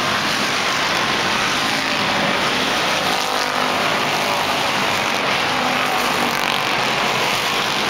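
A pack of thunder car race cars running laps on an oval track, their engines blending into one steady, unbroken sound as the field passes.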